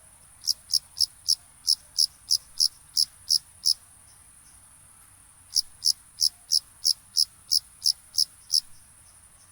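Crickets chirping: one loud cricket gives evenly spaced chirps about three a second in two runs of ten or so, pausing in between, over fainter chirping of other crickets and a steady high-pitched insect trill.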